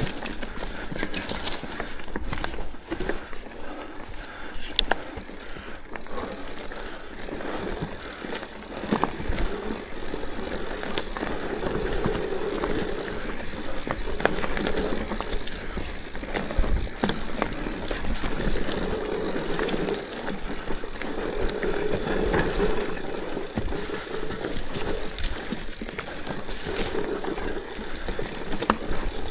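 Orbea Rallon mountain bike ridden along a dirt trail: steady tyre noise over the ground with rattling from the bike and frequent sharp clicks and knocks.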